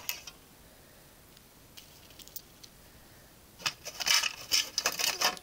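Clear hard-plastic display box handled on a wooden table: after a few quiet seconds with faint ticks, a run of clicks and rattles starts about three and a half seconds in and lasts to the end.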